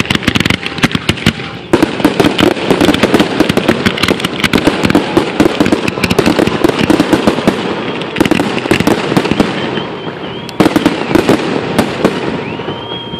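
Aerial fireworks bursting in rapid succession, with dense crackling throughout and fresh loud bangs about 2, 8 and 10.5 seconds in.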